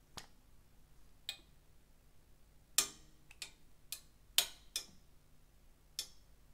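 Plastic squeeze bottle of applesauce being handled and squeezed: a series of short, sharp clicks and crackles. The two loudest come about three seconds and four and a half seconds in.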